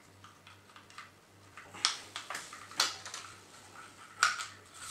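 Light, scattered clicks and taps of small silver metal clips being handled and fitted into the plastic casing of a Jura coffee machine during reassembly.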